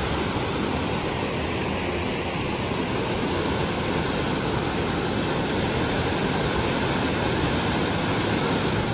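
Steady, even rush of a large waterfall, Narada Falls, its water noise spread from deep rumble to high hiss without any change.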